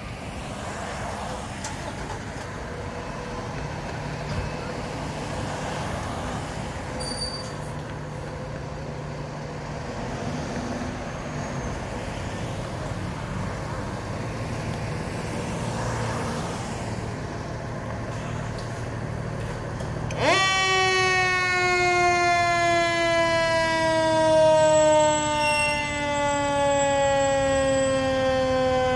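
Fire engine's diesel engine running steadily as the apparatus pulls out of the station. About 20 seconds in, a siren starts with a sudden rise and then slowly falls in pitch.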